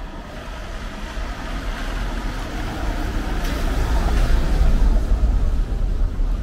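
A motor vehicle driving past on a wet street, its engine rumble and tyre hiss swelling to a peak about four to five seconds in and then easing off.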